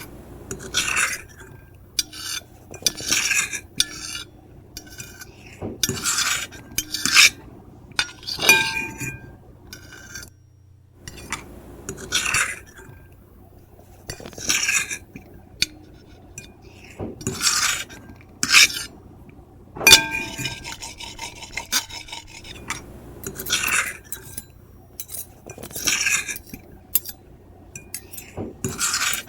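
Metal fork and knife scraping across a ceramic plate in short repeated strokes, one or two a second, with occasional brief ringing squeals and clinks of metal on the plate.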